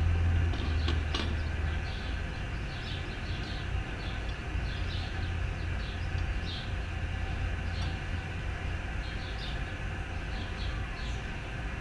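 Four-way cross lug wrench being spun to run lug nuts off a boat trailer wheel, with light scattered metallic ticks. A steady low rumble runs underneath and is the loudest sound.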